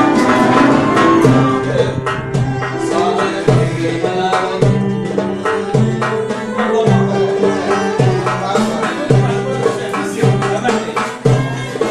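An oud-like lute and a guitar-shaped plucked string instrument played together in a lively rhythmic tune, with quick plucked notes over a repeating low pulse.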